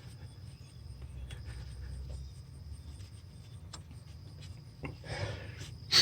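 Faint hand-work sounds at the alternator's charging-wire terminal: scattered light clicks and a brief rustle about five seconds in, then one sharp click at the very end.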